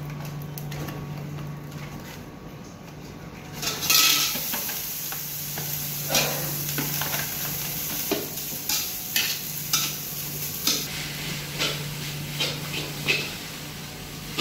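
Noodles tipped into hot oil in a wok start sizzling about four seconds in, followed by a metal spatula repeatedly scraping and knocking against the wok as they are stir-fried over the sizzle. A steady low hum runs underneath.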